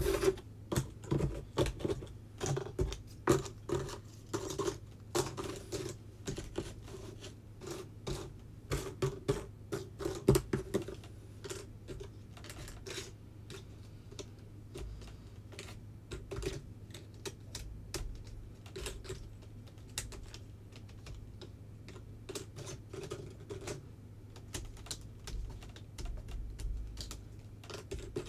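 Cardboard jigsaw puzzle pieces clicking and tapping as they are picked up, shuffled and set down on a puzzle board, in quick flurries for the first ten seconds or so, then sparser. A low steady hum runs underneath.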